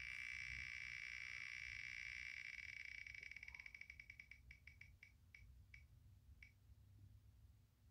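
Spinning number picker wheel on a phone, its tick sound effect from the phone's speaker: a fast run of faint ticks that blur together, then slow down and space out into single ticks, stopping about six and a half seconds in as the wheel comes to rest.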